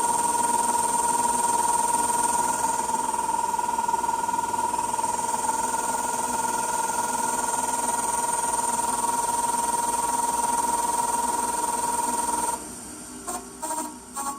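Nova 1624-44 wood lathe running with a steady high-pitched whine, the unwanted noise the lathe is still making. The whine cuts off about twelve seconds in, followed by a few light clicks and knocks.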